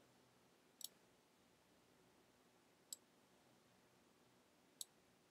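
Near silence with three faint computer mouse clicks, spaced about two seconds apart.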